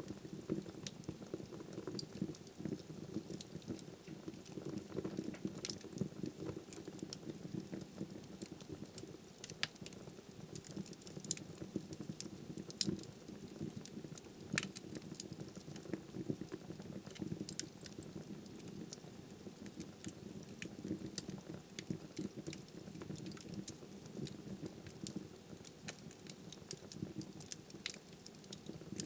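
Wood fire burning in a fireplace: a steady low flame rumble with frequent sharp crackles and pops of burning firewood.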